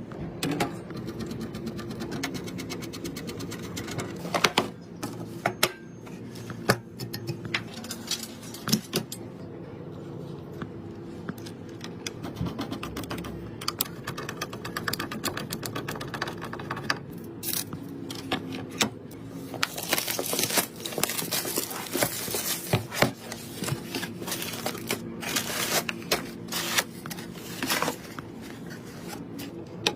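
Hands assembling a gaming PC: a run of small clicks, taps and knocks as components and screws are fitted, with a stretch of rubbing or scraping about two-thirds of the way in.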